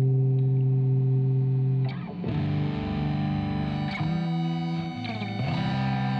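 Experimental rock music: a distorted electric guitar playing held chords, changing chord about every two seconds.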